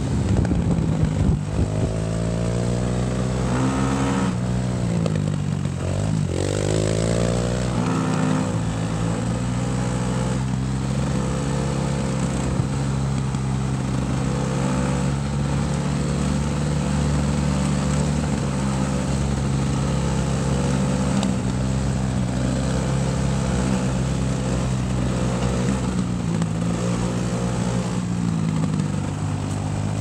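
Dirt bike engine running on a dirt trail, its pitch rising and falling with the throttle several times in the first ten seconds, then holding fairly steady.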